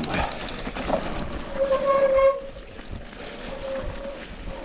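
Bicycle disc brakes squealing in a steady tone, loudest about two seconds in and again more faintly near the end, with a brief run of quick freewheel ticks at the start.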